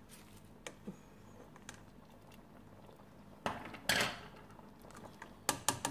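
A ladle stirring through a pot of cooked lentils, with small clicks at first, a louder scraping clatter about three and a half seconds in, and a few sharp knocks against the pot near the end.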